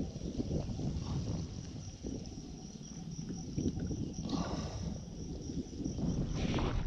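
Insects chirring steadily in a high, pulsing band, over a low, irregular sloshing and rumble of water moving against a wading body close to the microphone. There are a couple of brief louder splashy spells, about four seconds in and near the end.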